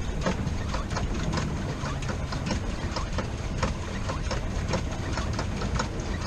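Swan pedal boat being pedalled: a steady low churning with irregular clicks and rattles from the pedal drive, a few a second.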